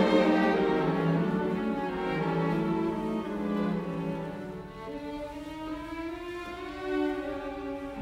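Background music: a slow melody of long held notes on bowed strings, violin and cello.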